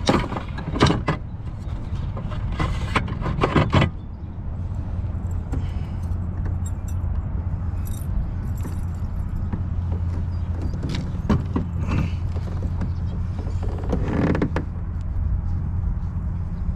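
Clicks and rattles of fishing gear being handled in a kayak, a landing net and rod knocking against the boat, busiest in the first few seconds with a few more clicks later, over a steady low rumble.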